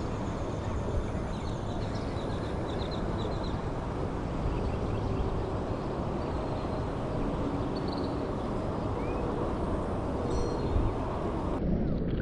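Steady outdoor rumble and hiss of wind on the microphone over open water, with a few faint bird chirps in the first few seconds and a single rising chirp later on.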